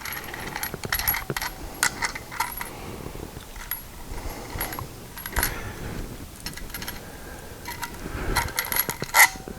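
Small metal parts and a wrench clinking and clicking irregularly while the light's mounting hardware is handled, with one louder ringing clink near the end.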